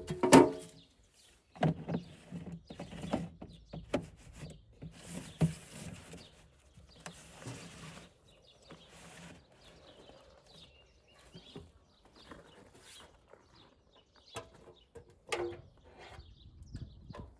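Irregular knocks, clicks and scrapes of plastic parts being handled as a plastic strainer lid and a downpipe are fitted into the top opening of an IBC water tank.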